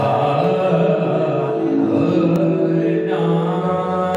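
A man singing long held notes to harmonium accompaniment, the melody stepping to a new pitch a couple of times.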